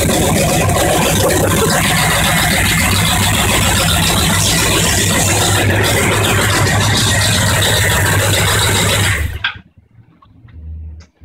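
Freshly built carbureted V8 in a '55 Chevy truck on its first run, running loud and steady with an even low rumble and no muffling. The sound cuts out abruptly about nine seconds in.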